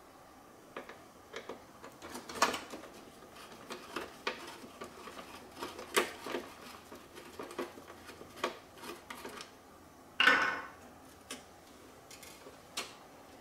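Irregular clicks, taps and knocks of a screwdriver and hard plastic parts being handled as the plastic housing of a Roomba Clean Base is taken apart. A louder scrape lasting about half a second comes about ten seconds in.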